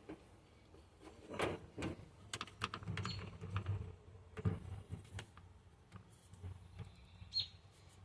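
Irregular light clicks and rustling as a bundle of old wiring is handled and sorted by hand.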